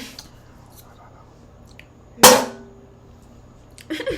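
A single loud, sharp clank about two seconds in, followed by a brief ringing tone that fades within a second.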